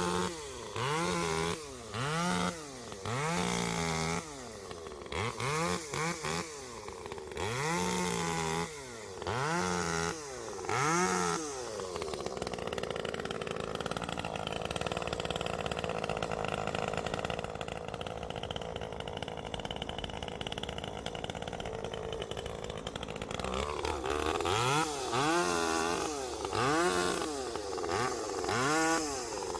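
One-handed chainsaw engine revved again and again, each rev rising and falling in pitch about once a second. In the middle it is held at speed for about ten seconds while cutting apple wood, then it goes back to repeated revs.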